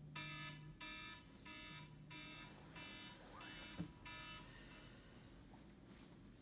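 A wake-up alarm beeping in an even pattern, seven beeps about two-thirds of a second apart, stopping a little over four seconds in. Soft rustling of bedding follows.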